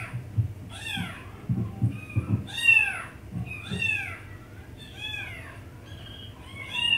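Repeated high-pitched kitten meows, about one a second, each rising and falling in pitch. They are played from a cat video through computer speakers, with a few dull bumps in between.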